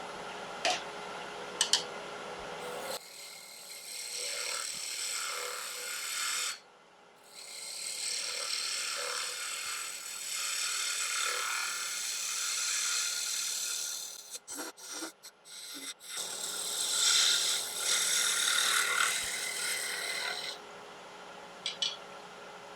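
A turning gouge cutting into a spinning piece of wood on a wood lathe, a steady hissing, scraping shave over the lathe's hum. It stops and starts abruptly several times.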